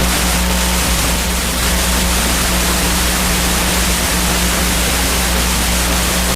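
Loud radio receiver static: an even hiss over a steady low hum, as from a weak AM or FM station.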